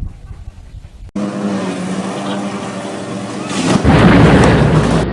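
A steady low hum cuts in abruptly about a second in, then a loud rumbling crash-like noise takes over for the last second or so.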